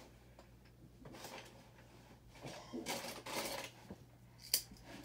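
Loose plastic LEGO pieces rattling and clicking as hands sort through them, with one sharp click near the end.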